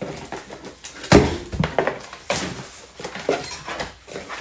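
Cardboard packing being handled inside a shipping box: irregular rustling and scraping of cardboard, with a sharp thump about a second in as the loudest sound.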